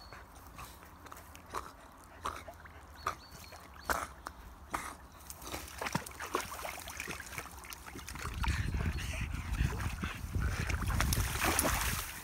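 Cattle dog whimpering and yipping in short, sharp calls about once a second, with a louder rushing noise building over the last few seconds.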